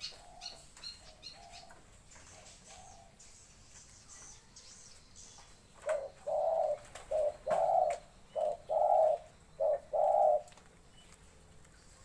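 A dove cooing, a run of about nine short and longer coos starting about six seconds in, after fainter coos and some high bird chirps in the first few seconds.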